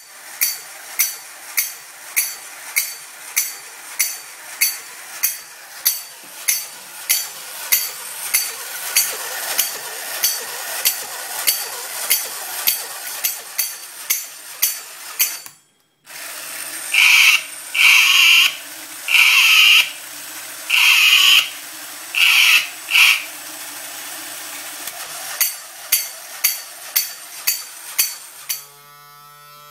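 Vintage mechanical clapping-monkey toys running: cymbals clash in a steady rhythm a little under twice a second over the whir of the toy's motor. After a brief break, six long, high squeals come about a second apart, and then the cymbal clashing resumes.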